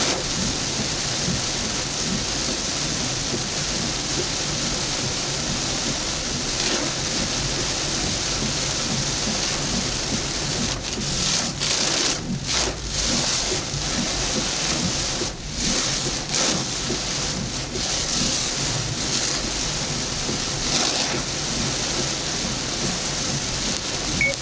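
Heavy rain on a moving vehicle, heard from inside the cabin: a steady hiss of rain and spray with a low rumble beneath. The hiss thins briefly several times about halfway through.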